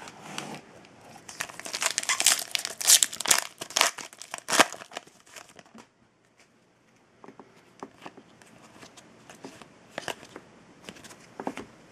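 Foil trading-card pack wrapper being crinkled and torn open, a dense crackling for the first few seconds. After a short near-quiet pause come fainter scattered ticks and rustles of cards being handled.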